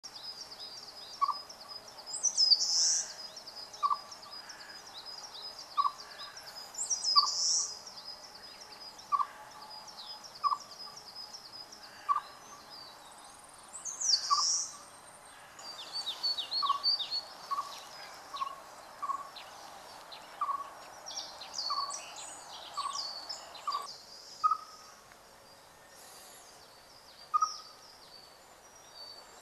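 Siberian chipmunk calling its spring mating call: a single short, clear chirp repeated about once a second. Higher-pitched bird trills and song phrases sound behind it.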